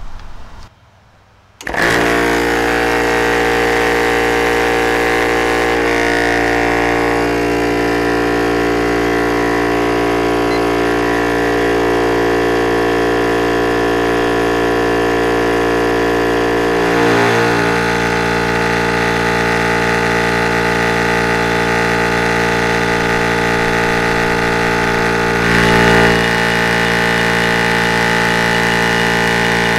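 Vevor 4500 PSI high-pressure scuba and paintball air compressor starting up about two seconds in and then running steadily, a loud machine drone with a strong pitched hum, as it fills a 2-litre scuba tank toward 3000 PSI. Its tone shifts briefly twice in the second half.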